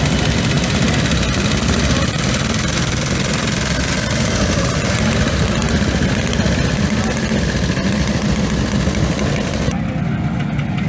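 Several classic motorcycle engines running at idle close by, a steady dense engine sound; the sound changes abruptly near the end as another group of bikes takes over.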